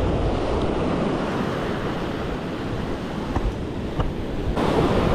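Ocean surf breaking and washing up the beach, with wind rumbling on the microphone; the rush gets suddenly louder and hissier near the end.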